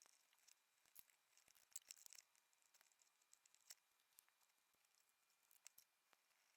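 Near silence broken by faint, scattered light clicks and ticks of small RC crawler parts and tools being handled during assembly.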